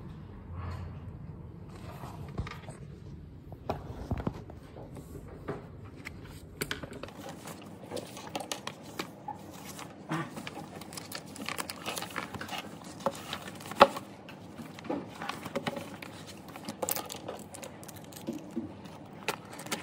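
A run of small clicks, taps and rustles of objects being handled, growing busier partway through, with one sharper knock later on.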